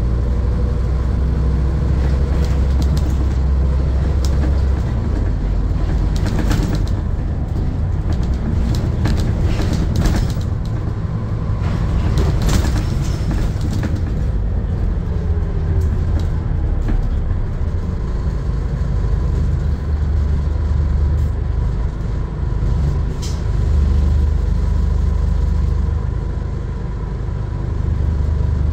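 Scania N230UD double-decker bus heard from inside on the upper deck while under way: a low diesel engine drone with road noise. Body and interior rattles and clicks come through in the middle stretch, and the engine note eases near the end as the bus pulls up at a stop.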